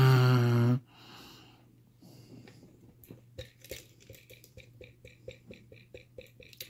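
A man's drawn-out groan at the start, then a run of light, evenly spaced metal ticks, about three a second, from a lock pick working the pins of an ABUS 7240 padlock.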